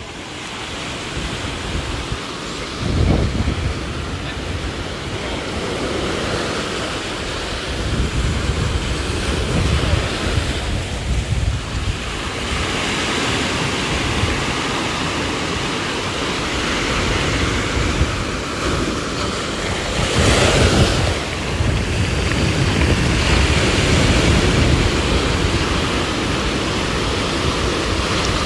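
Ocean surf washing on a beach, with wind gusting against the microphone in several rumbling surges.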